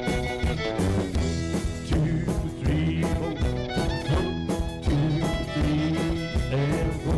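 Live country band playing an instrumental passage without vocals: a steady drum beat under guitars, with a Telecaster-style electric guitar being picked.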